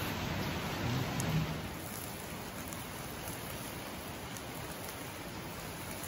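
Noodles slurped and chewed for about the first second and a half, then a steady, even hiss.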